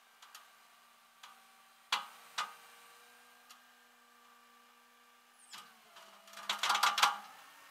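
Metal tie-down chain and hooks clinking against a tow truck's steel flatbed deck as the car is secured: a few separate clicks, then a quick run of ringing clanks near the end, over a faint steady hum.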